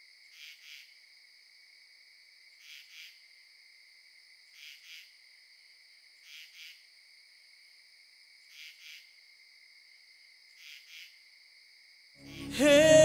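Crickets chirping as night ambience: a faint steady high trill with a double chirp about every two seconds. Music comes in loudly near the end.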